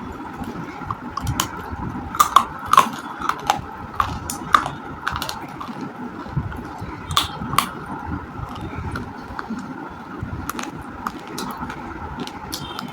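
Chunks of roasted clay being bitten and crunched close to the microphone: irregular crisp cracks and crunches, with the loudest cluster about two to five seconds in.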